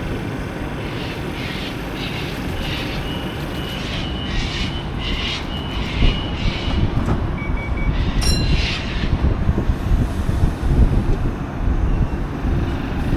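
Electric suburban train running through the station with a steady low rumble. A quick run of high rhythmic clatter comes in the first half, and short high-pitched wheel squeals follow about halfway through.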